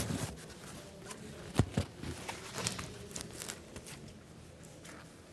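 Handling noise from a blood pressure cuff and mercury sphygmomanometer being set beside a patient's arm: a sharp knock at the start, two more knocks about a second and a half in, then faint clicks and rustling.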